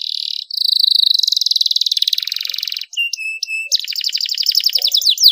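Domestic canary singing long, fast rolling trills: one long roll, a short break, a few separate notes, then another rapid trill ending in quick down-slurred notes.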